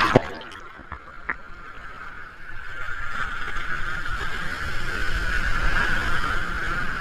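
Ocean surf: the wash of a breaking wave dies down in the first second, then the rush of the surf builds again and holds steady.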